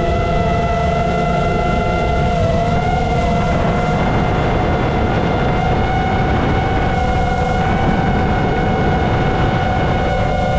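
FPV quadcopter's brushless motors and propellers whining steadily, the pitch dipping and rising slightly about three seconds in as the throttle shifts, over heavy wind and prop-wash rumble on the onboard camera's microphone.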